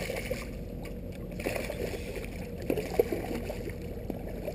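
A hooked bass thrashing at the surface beside a small boat, with one sharp splash right at the start, followed by quieter sloshing of water and a few light knocks.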